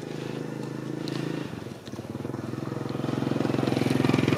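A small engine running at a steady speed with a fast, even putter. It dips briefly a little under two seconds in, then grows louder.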